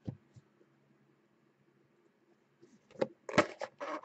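Cardboard trading-card box being handled: a single click near the start, a quiet stretch, then a quick run of clicks and knocks about three seconds in as the lid is slid off the box.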